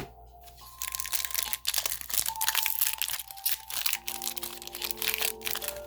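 Crinkling of trading-card packaging being handled, a rapid irregular crackle that starts about a second in, over faint soft background music.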